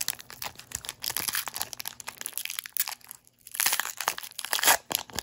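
Foil Pokémon booster-pack wrapper crinkling and tearing as it is pulled open by hand, with a short pause a little after three seconds in.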